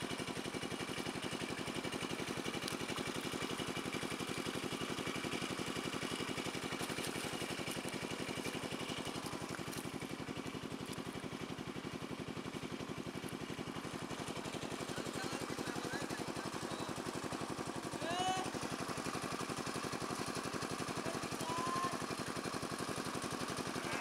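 A small engine running steadily at a constant speed, a low pulsing drone that does not change.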